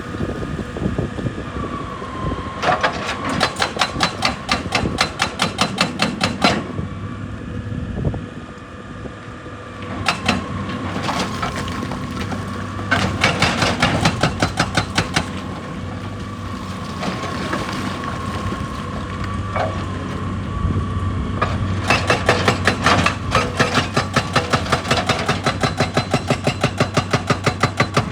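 Excavator breaking rock with its hydraulic breaker hammer: several runs of rapid, even blows lasting a few seconds each. The excavator's diesel engine runs steadily underneath.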